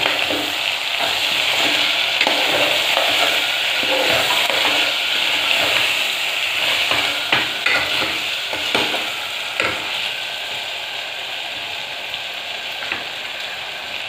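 Sliced taro root (arbi) sizzling in oil with spice paste in a pressure cooker, stirred with a steel spoon that now and then clicks and scrapes against the pan. The steady frying hiss eases a little in the last few seconds.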